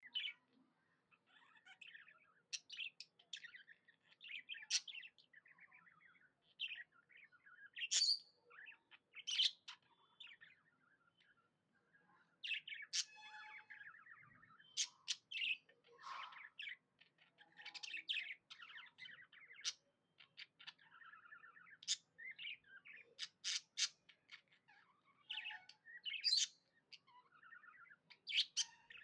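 Pet budgies (budgerigars) chattering continuously: a busy, warbling mix of short chirps, trills and sharp clicks, with several sharper, louder chirps scattered throughout.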